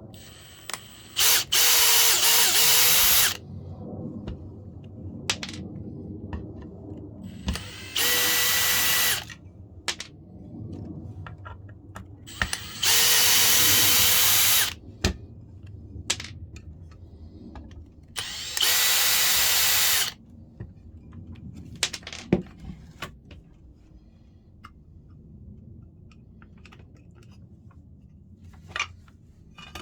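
A power tool's motor switched on in four short bursts of one to two and a half seconds each, running with a steady high whine. Between the bursts come light clicks and handling knocks.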